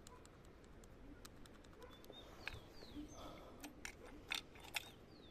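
Scattered small clicks and rattles of a key being worked in a motorcycle's ignition switch, which is playing up; the engine is not running. A bird chirps briefly a couple of times.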